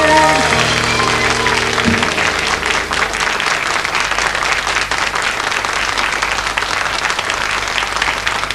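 Audience applause breaks out at the end of a song and keeps going. The band's closing chord rings under it for the first few seconds and then dies away.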